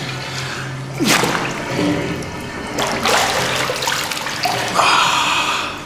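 Water splashing and rushing as a person ducks under in a sulfur bath pool and comes back up. There are several splashing surges, about a second in, around three seconds, and a last one near the end.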